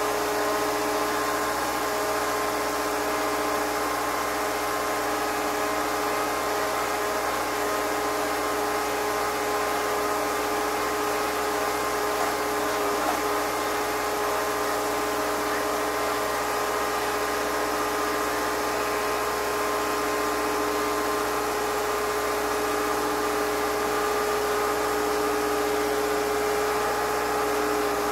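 An engine or machine running steadily at one constant pitch, its speed not changing.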